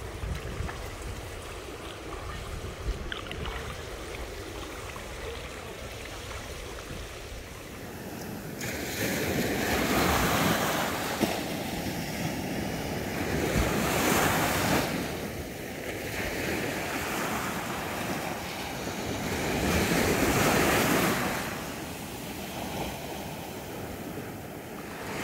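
Sea surf breaking on a beach, with wind buffeting the microphone. From about eight seconds in, swells of surf rise and fall every four to six seconds.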